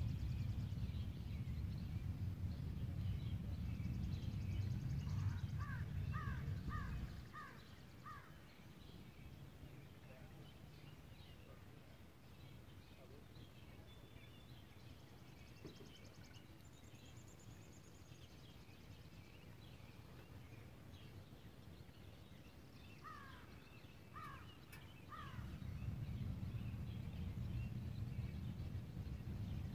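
Outdoor bird calls: a run of about five short, falling call notes some six seconds in and three more near the end, over scattered faint chirps. A low rumble is heard in the first seven seconds and again in the last four.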